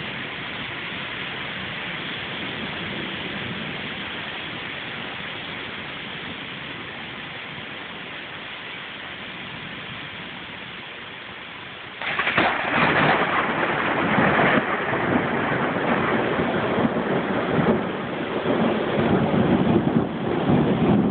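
Thunderstorm: steady rain, slowly easing, then about twelve seconds in a sudden loud clap of thunder that goes on rumbling, rising and falling.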